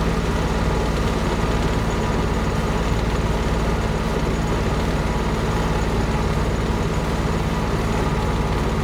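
An engine running steadily at constant speed, with a strong low rumble and steady tones, likely the machinery used to spray the cattle for flies; it cuts in and out abruptly.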